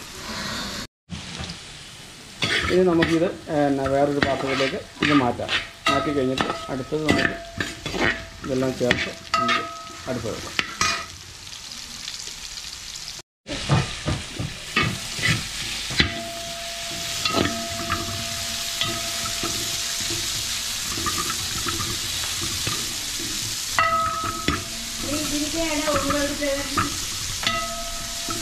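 Metal tongs and a slotted spoon scraping and clinking against a wide metal pan as chopped vegetables, then sliced onions, are stirred and fried, the pan ringing under the strokes. From about halfway a steady frying sizzle rises beneath the stirring.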